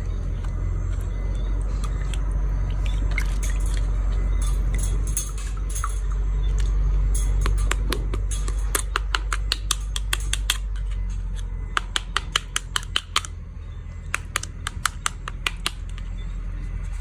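A run of short, sharp clicks and taps from a toy being handled, coming in quick clusters, over a steady low hum.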